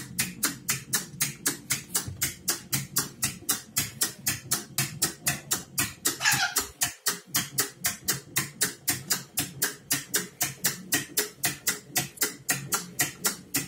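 Wind-up rocking toy running on its clockwork: a rapid, even clicking, about four to five clicks a second, over a low whirr from the spring motor. A brief falling squeak about six seconds in.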